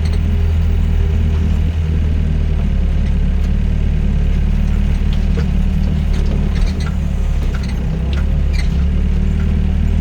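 The diesel engine of a Doosan DX55 mini excavator runs steadily while the machine works. A few faint clicks and clanks from the machine are heard over it.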